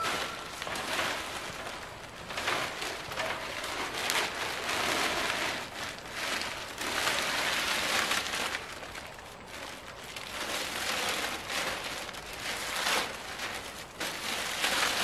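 A large sheet of plastic house wrap rustling as it is pulled and flapped into place over a gable end's framing, the noise rising and falling with the handling.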